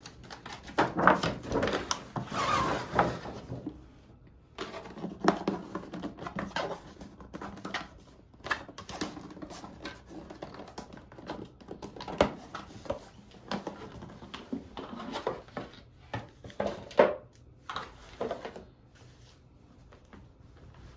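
A stiff paper shopping bag and a cardboard gift box being handled and opened: irregular rustling and scraping with a few sharp clicks and knocks, then the softer rustle of a fabric dust bag, dying down near the end.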